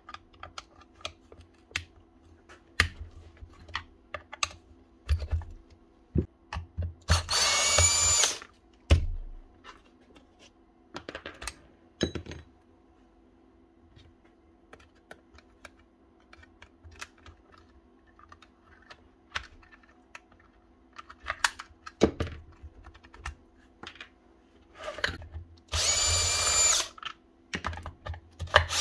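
Bosch cordless drill/driver turning screws in a rotary hammer's housing, running in three short bursts of about a second each, one about seven seconds in and two near the end. Between the runs, parts and tools click and knock on the bench.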